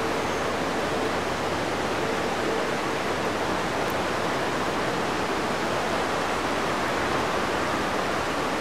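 Steady rushing of a mountain river flowing through the gorge, an even noise with no breaks. A faint hum fades out in the first few seconds.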